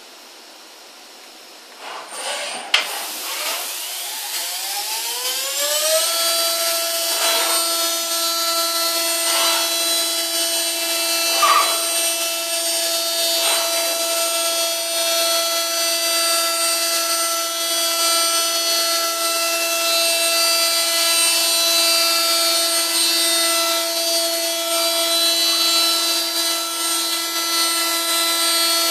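The high-speed spindles of a small four-spindle CNC mill: a knock about two seconds in, then the spindles wind up with a rising whine over about two seconds. They settle into a steady high whine with a rough cutting noise as they mill metal phone parts under coolant spray.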